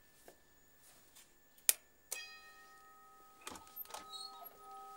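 Electric doorbell chime: a click from the button, then a two-note ding-dong whose tones ring on and fade slowly.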